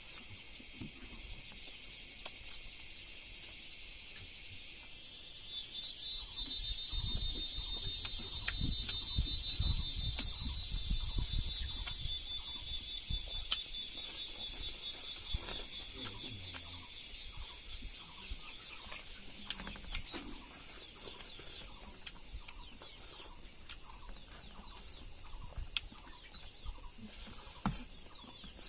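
A steady, high, fast-pulsing insect chorus, which swells louder about five seconds in and then slowly eases, with scattered sharp clicks over it.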